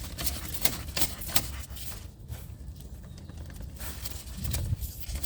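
A handful of sharp clicks and taps in the first couple of seconds, then fewer, over a steady low hum. They are typical of hands handling the loose air-conditioning compressor clutch, whose bolt thread is stripped so the clutch plate spins freely.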